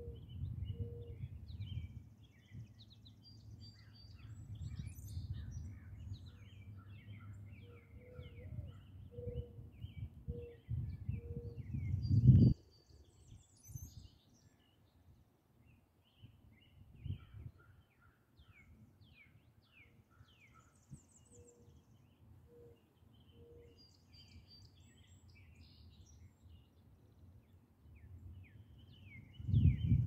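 Songbirds chirping and singing, with low cooing notes repeated in short series. Wind rumbles on the microphone through the first part, rising to a loud gust that cuts off about twelve seconds in, and picks up again near the end.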